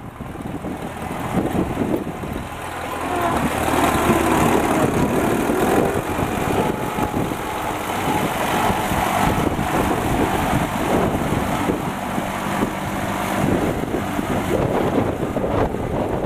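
A 1964 Minneapolis-Moline U302 tractor's 220-cubic-inch propane-fuelled engine running steadily as the tractor is driven. It grows louder about three to four seconds in.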